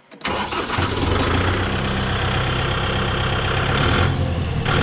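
Kubota MU5501 tractor's four-cylinder diesel engine starting and settling straight into a steady idle.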